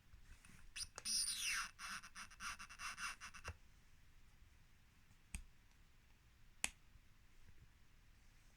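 Hypervolt Plus massage gun failing to start after sitting unused. A click about a second in is followed by its motor buzzing for about two and a half seconds with a whine falling in pitch, and then it stops. Two more single clicks follow later, bringing no start.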